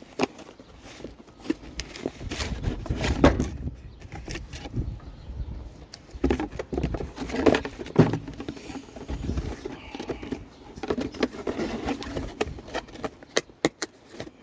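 Items and packaging being handled while a box is unpacked: irregular rustling with scattered clicks and knocks.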